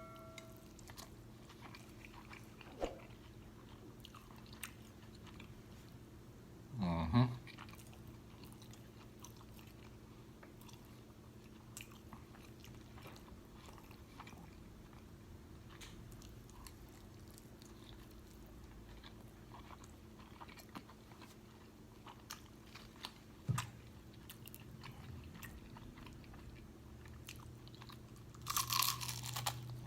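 Close-miked eating: quiet chewing and biting of food with small wet mouth clicks and crackles. A louder short sound comes about seven seconds in, and a louder crunchy stretch follows near the end.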